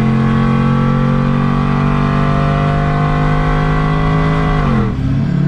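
Pickup truck engine running hard at high revs at highway speed, a steady, even note. Near the end the pitch drops sharply as the revs fall.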